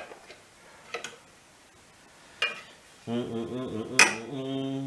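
Metal hand tools clinking against metal: a few sharp separate clinks, the loudest about four seconds in. A man's low hum or mutter without words runs through the last couple of seconds.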